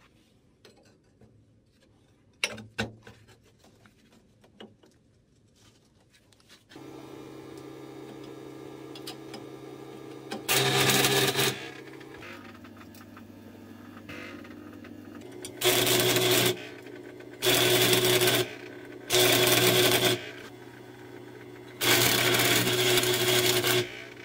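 A few sharp metal clicks as a steel flat bar and a magnetic welding square are set on a steel plate. Then a welding machine hums, and an arc welder tack-welds the bar to the plate in five short bursts of crackle, each lasting one to two seconds.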